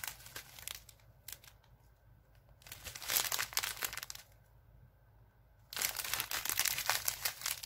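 Small clear plastic packets of diamond-painting drills crinkling as they are handled, in three spells with short pauses between: the first second, around three to four seconds in, and the last two seconds.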